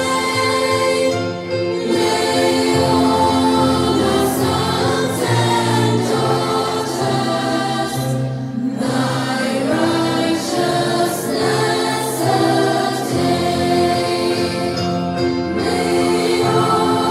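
A group of women singing a song together, with musical accompaniment.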